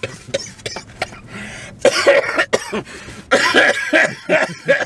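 A man coughing hard in a fit: a burst of rough coughs about two seconds in, then a longer run of coughs near the end.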